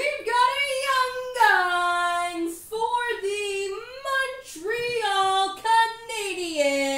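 A single high voice singing wordless notes without accompaniment: held notes joined by sliding falls in pitch, in short phrases with brief breaks between them.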